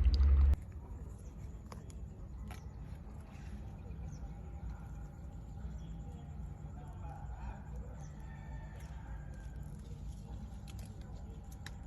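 Loud background music cuts off about half a second in, leaving quiet ambience: a steady low rumble with a few faint scattered taps and clicks.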